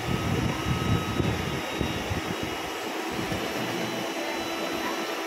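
Steady whir of an electric fan running, with a faint hum in it. Low, uneven rumbles come through in the first two seconds or so.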